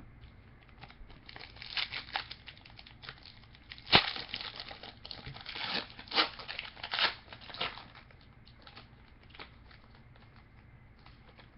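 Wrapper of a trading-card box topper crinkling and tearing as it is opened by hand, a run of crackles with a sharp snap about four seconds in, dying down to a few faint ticks.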